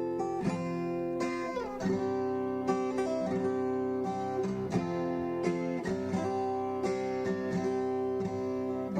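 Background music: acoustic guitar picking a melody, with notes struck about twice a second.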